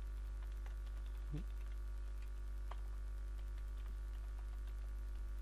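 Computer keyboard keys being typed, faint irregular clicks, over a steady low electrical hum that is the loudest thing heard.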